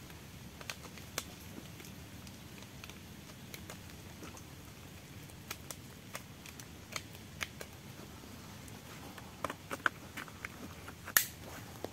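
Scattered light clicks and taps of a suppressed Saiga 410 shotgun being handled on its bipod while the shooter settles in. A few sharper clicks come near the end, the loudest a single crisp click about eleven seconds in.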